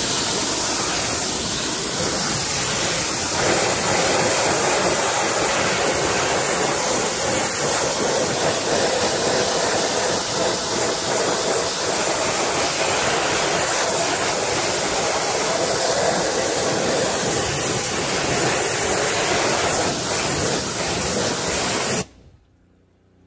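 Pressure washer jet spraying onto an alloy wheel and tyre, rinsing off wheel cleaner: a steady, loud hiss of water that cuts off suddenly near the end.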